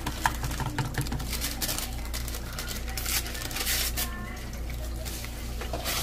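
Metal spoon stirring instant grits and water in a plastic bowl, with quick clicks and scraping, while a paper grits packet crinkles. A steady low hum runs underneath.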